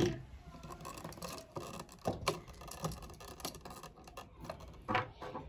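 Light, irregular clicks and scrapes of a screwdriver, wire and plastic outlet being handled while a wire is fastened under a terminal screw, with one sharper click about two seconds in.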